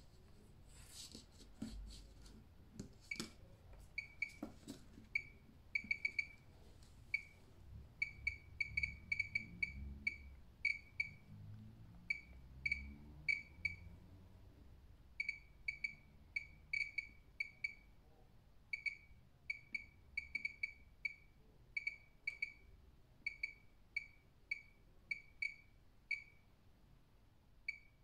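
Pripyat radiation meter chirping a short high beep for each particle it detects, at an irregular rate of roughly two a second. The beeps are counting radiation from a radium-painted watch dial. A few sharp handling clicks come in the first few seconds.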